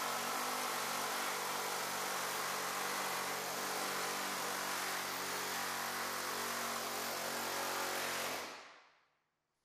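Pneumatic air hammer fitted with a Skin Zipper forming head, running steadily as it folds the edge of a car door skin over to a 45-degree angle; the sound fades out near the end.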